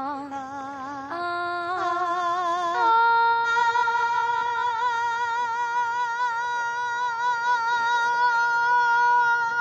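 A woman's singing voice holding three rising notes with vibrato: a step up about a second in, another near three seconds in, and the top note held to the end.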